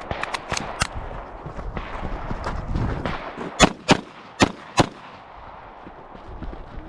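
Pistol shots: four sharp shots in quick succession about halfway through, a little under half a second apart. Fainter sharp snaps come in the first second.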